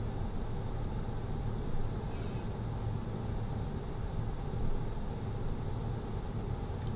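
Automatic tunnel car wash heard from inside the car: water and soap spraying over the windshield above a steady low hum, with a brief hiss about two seconds in.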